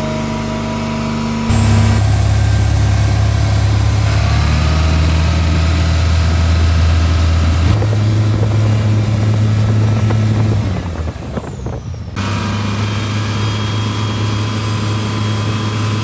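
Cummins QSB 6.7 six-cylinder turbodiesel (550 hp) running hard in a 9 m speedboat, a loud steady drone with a faint high whine. It comes in several spliced clips, and the tone changes suddenly at each cut.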